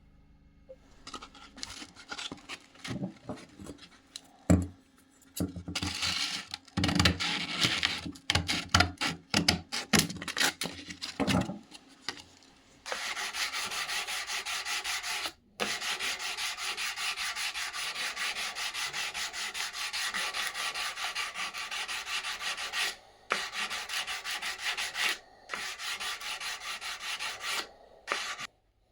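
Hand scraping with an abrasive tool on the axe or its handle. Uneven strokes and a few knocks for the first twelve seconds or so, then from about halfway a fast, steady back-and-forth run of strokes with a few short pauses.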